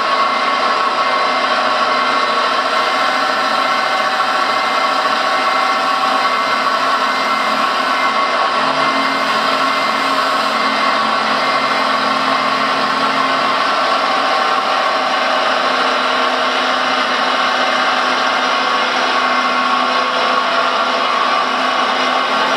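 Hydraulic pump of a rebuilt RC Liebherr 956 model excavator running steadily: a constant electric-motor whine over a hiss as the boom and bucket are worked.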